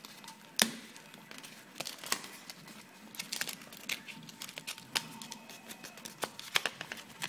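Cut cardboard pieces being pressed and pulled free of the sheet by hand: irregular crackles, snaps and rustles of the card, the sharpest snap about half a second in.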